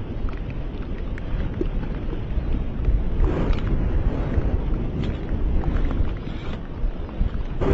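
Low, continuous rumble from the Fagradalsfjall eruption's lava fountain, mixed with wind buffeting the microphone. It swells and grows brighter about three seconds in.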